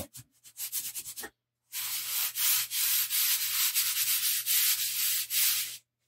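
Scratchy rubbing of chalk pastel on drawing paper, in repeated strokes as the colour is worked and smoothed into the paper. It starts a little under two seconds in and stops just before the end.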